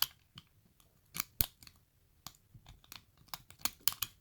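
Hook pick and tension wrench clicking and scraping in the keyway of a disc padlock: irregular small metallic clicks while the pins are probed, with a cluster of louder ones near the end.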